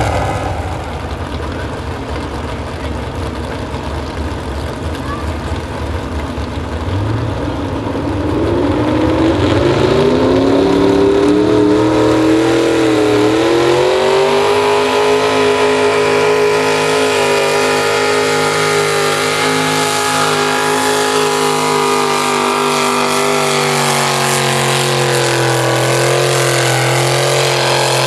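A pro stock mini truck's modified engine in a truck pull: running low and rough at first, then revving up about eight seconds in and held at high rpm under load, with a brief dip and small wavers in pitch.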